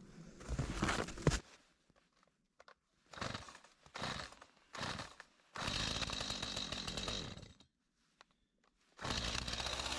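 Gas chainsaw running in short bursts broken by abrupt silences, then running steadily for about two seconds. It stops, and it runs again near the end.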